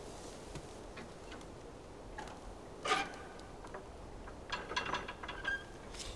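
A few sharp metallic clicks and clinks over a low, steady background: one about three seconds in, then a quick cluster near the end.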